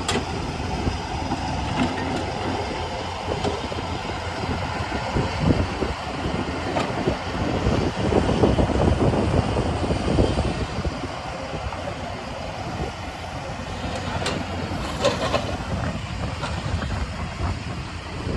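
Heavy diesel earthmoving machinery running: a steady low engine rumble that swells louder midway, with two sharp clanks late on.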